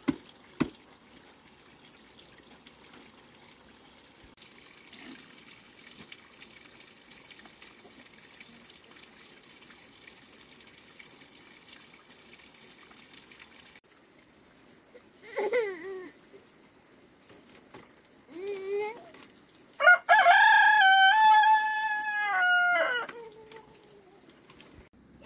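A rooster crows once, loud and about three seconds long, near the end, after two short calls. Before that comes faint sloshing of water in a plastic basin as clothes are scrubbed by hand.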